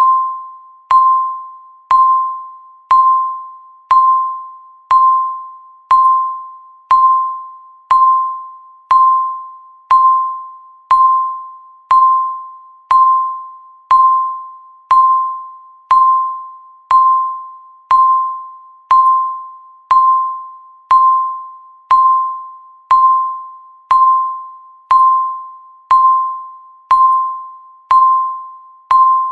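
Countdown timer's tick sound: a single pitched ping struck once a second, each one starting sharply and fading away before the next, in an even, unbroken rhythm.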